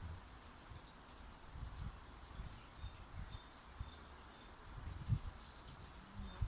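Quiet garden ambience: faint, short, high bird chirps scattered through, over an uneven low rumble of wind on the microphone.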